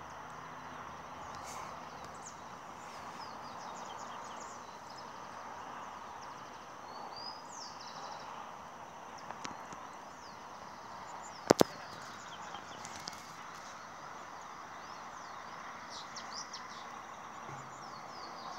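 Outdoor ambience: a steady background hiss with small birds chirping now and then, and two sharp clicks in quick succession a little past the middle, the loudest sound.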